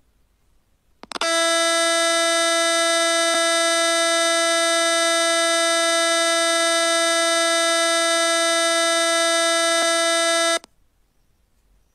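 A loud, steady, buzzing electronic tone held at one pitch, starting about a second in and cutting off suddenly after some nine seconds.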